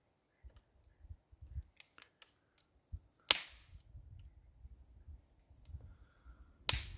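A burning brush pile crackling, with two loud sharp pops about three seconds in and again near the end, and small ticks between them.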